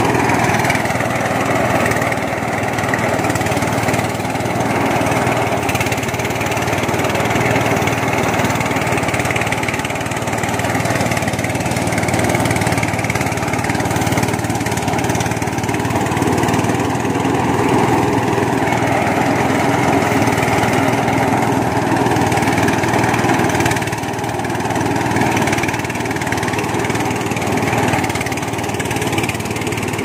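Small engine of a rice threshing machine running steadily.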